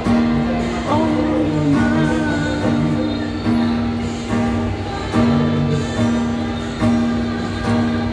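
Background music led by guitar, with a strummed pulse a little more than once a second under a held note and a wavering melody line.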